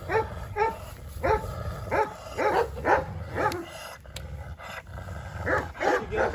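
Kangal shepherd dogs barking at each other, the two not getting along. Barks come in short runs about half a second apart, with a pause of nearly two seconds past the middle.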